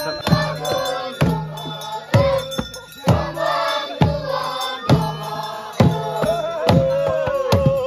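A group of men chanting a traditional dance song together, over a barrel drum beaten steadily about once a second, with sharp clicks between the beats.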